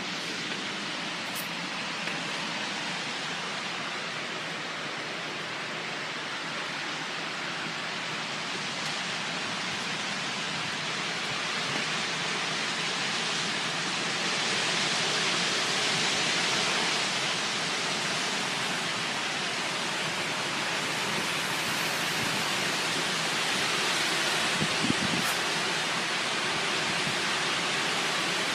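Storm wind blowing hard and without a break, swelling a little about halfway through, with a brief thump near the end.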